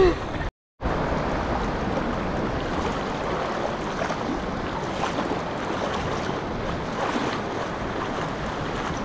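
Small surf breaking and washing through the shallows, a steady rush of water and foam, with some wind on the microphone. A brief moment of silence interrupts it just after the start.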